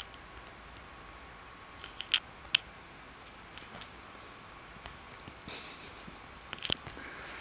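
Kittens' claws and paws scratching and snagging on couch fabric during play-fighting: two sharp clicks about two seconds in, a brief rustle, then two more quick clicks near the end.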